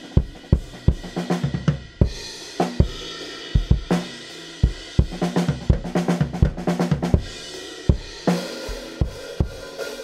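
Recorded drum kit playing back from the kick drum's outside-microphone track: kick hits with snare, hi-hat and cymbals bleeding in, in a steady groove. It runs through a compressor set to a low threshold that is squashing the kicks and catching some of the snare.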